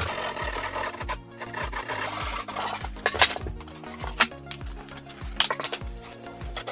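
Background music with a steady beat, over a rasping, scraping sound that comes in strokes about a second long with short gaps between them.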